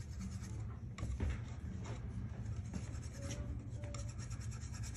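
Palette knife scraping and mixing oil paint on a wooden palette, in short irregular strokes.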